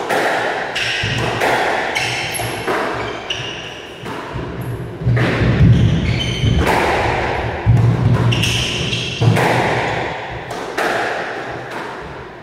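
Squash rally: sharp hits of racket on ball and ball off the walls, one every second or so, echoing in the enclosed court, with shoes squeaking on the wooden floor between shots.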